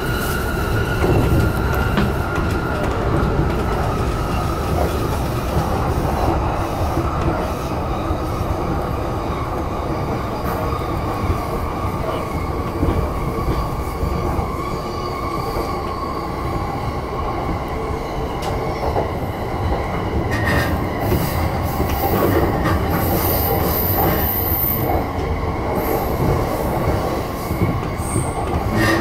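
JR Yamanote Line E235-series electric train running, heard from inside the front car: a steady rumble of wheels on track, with a high-pitched wheel squeal on a curve about two-thirds of the way through.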